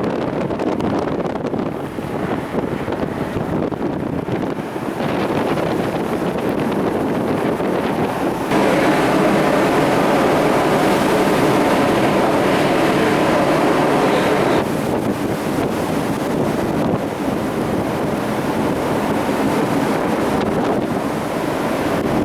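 Steady rush of wind buffeting the microphone over the sea and ship noise of a ferry under way. The level jumps abruptly several times.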